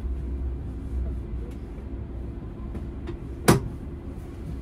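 Steady low hum in a stationary tram's driver's cab, with a few faint clicks and one sharp, loud click about three and a half seconds in.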